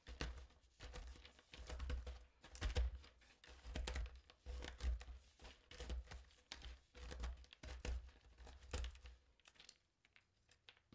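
Hand nut chopper cutting pecans on a plastic cutting board: a dozen or so short crunching strokes, one to two a second, each with a soft knock of the blade on the board, stopping about nine seconds in.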